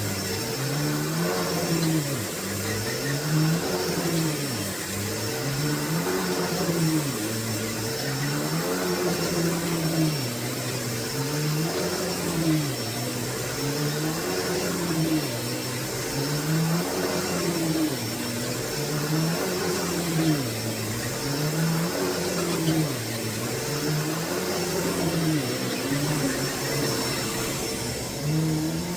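Hoover Deluxe Elite Rewind U5509-900 upright vacuum cleaner running while being pushed back and forth, its motor hum rising and falling in pitch about every two seconds with the strokes.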